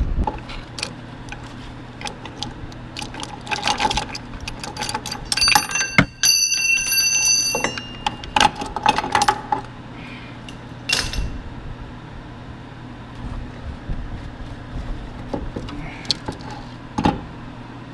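Metal tools clinking and clanking as a three-jaw puller is taken off an LS engine's harmonic balancer, with a ringing bell-like metal note about five to seven seconds in.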